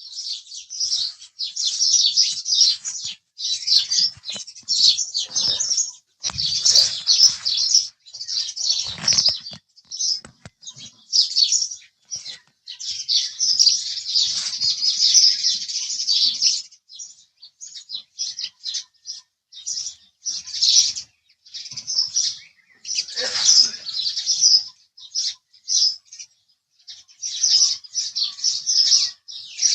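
House sparrows chirping: many short, high, overlapping chirps in busy bouts separated by brief pauses. A few low rustles, like wing flutters, come through between them.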